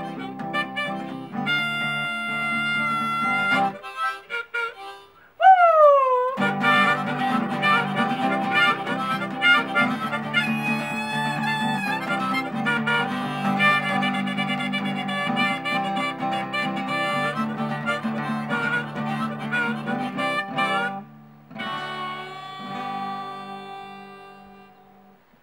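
Harmonica and acoustic guitar playing the instrumental close of a folk song. About four seconds in the music thins out, then a single falling slide leads back into the full playing; near the end a few held notes fade away.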